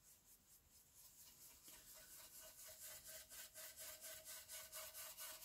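A make-up brush loaded with ink scrubbing in circles on watercolour paper. It makes faint, quick, rhythmic scratchy strokes that grow louder after about a second.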